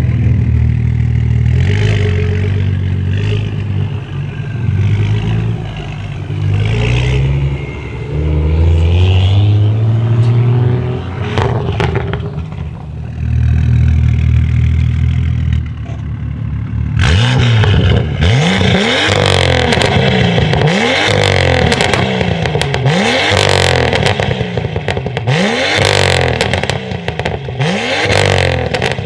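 BMW M2 F87's turbocharged straight-six through a decatted Fi valved exhaust. For the first half it runs at low revs with a few slow rises and falls. From about halfway it is blipped again and again, about once a second, with loud crackles and pops on each lift-off.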